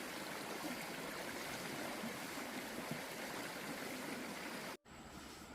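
A steady, even rushing noise that cuts off abruptly near the end and gives way to a fainter hiss.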